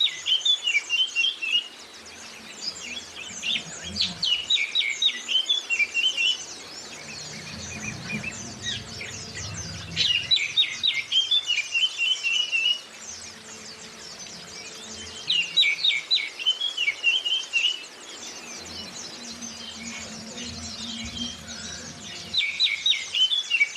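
Caged-bird song of an oriental magpie-robin (kacer) and white-eyes. Loud, rapid song phrases recur every few seconds over a continuous fainter, high twittering.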